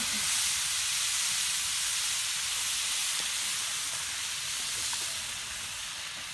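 Snails sizzling on a hot stone slab: a steady hiss of steam that slowly dies down.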